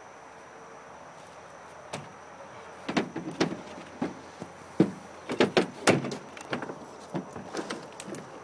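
A series of sharp clicks and clacks, one about two seconds in and then a quick irregular cluster through the rest, the loudest two close together near the middle.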